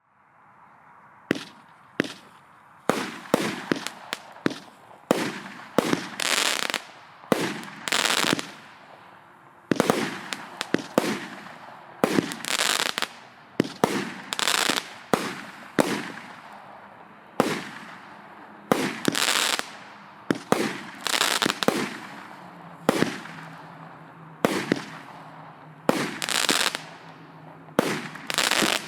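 A 25-shot, 0.5-inch-calibre firework battery (cake) firing its volley: sharp pops about once a second, each followed by a trailing burst noise. The first shot comes a little over a second in.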